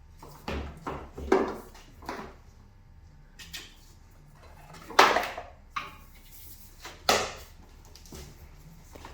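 Irregular knocks and clunks of car parts and tools being handled, about nine in all, the loudest about five and seven seconds in.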